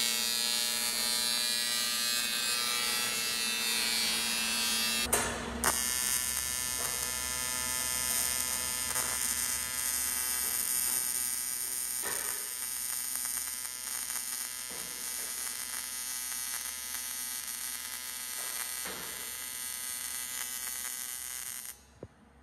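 TIG welding arc buzzing steadily with a hiss, in two long welds: a short break about five seconds in, then the second weld stops abruptly near the end.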